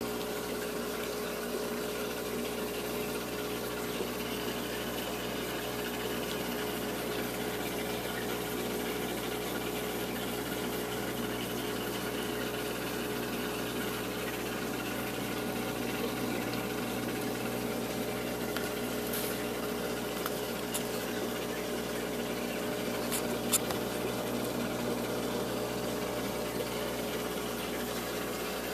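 Aquarium pump and filter running: a steady rush of moving water over a constant mechanical hum. A single sharp click near the end.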